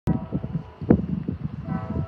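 A train horn sounds a chord twice, briefly, over an uneven rumble of wind on the microphone.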